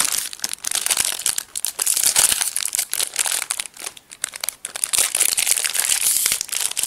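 Gold foil wrapper crinkling and crackling as hands unwrap and crumple it: a continuous run of quick, irregular crackles.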